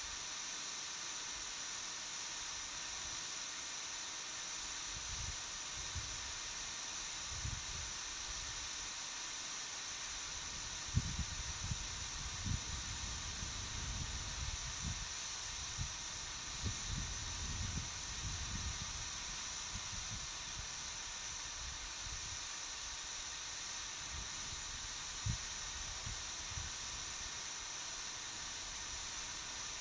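Steady, even hiss, with irregular low buffeting from wind on the microphone, most of it in the middle of the stretch and once more near the end.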